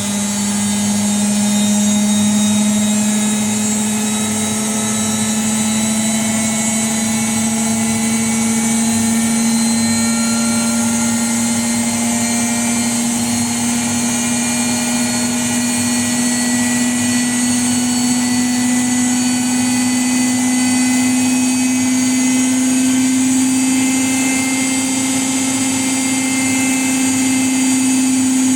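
Washing machine spinning its drum, with a steady motor whine that climbs slowly in pitch as the spin speeds up.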